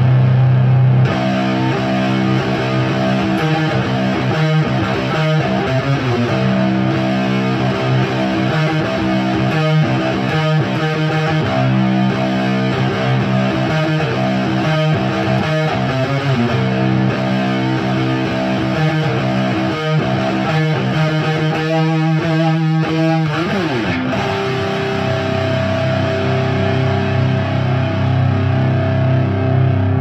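Overdriven electric guitar with Bare Knuckle Mississippi Queen P90 pickups, played through a Diezel Hagen tube head with KT77 power tubes into a Marshall Mode Four cabinet with Celestion G12K-100 speakers. It plays rhythmic chord riffs, slides down in pitch near the end, then lets a chord ring.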